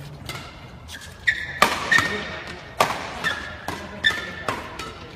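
Badminton rackets striking a shuttlecock in a fast drill rally, a sharp crack roughly twice a second starting about a second in.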